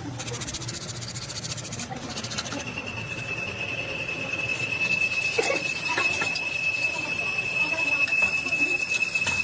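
A steady high-pitched mechanical squeal holding one pitch, starting about two and a half seconds in. A fast, fine ticking comes before it.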